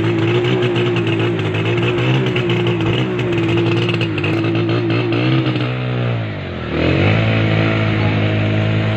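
Motor vehicle engine running close by at a steady pitch; about six seconds in the revs sag and then pick up again.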